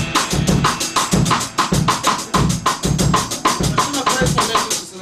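A drum kit playing a steady, fast beat: bass drum thuds about twice a second under a quick, even run of snare and cymbal strokes. The playing drops away right at the end.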